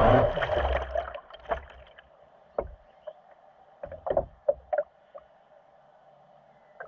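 Water lapping and slapping against the hull of an RC offshore boat floating idle, its motor not running: a loud thump and rumble at the start, then scattered short knocks and slaps.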